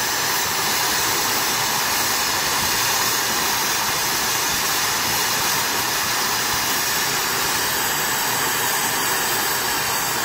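Steady rush and hiss of a brazing torch flame heating the copper feeder tubes of a multiple-orifice refrigerant header, with nitrogen blowing through the header to clear wax and carbonized-oil debris from the orifices.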